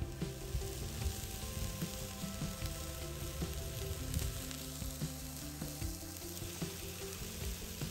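Bacon rashers and sausages sizzling steadily on the hot griddle plate of a Cadac gas camping barbecue, the meat still raw and freshly laid on.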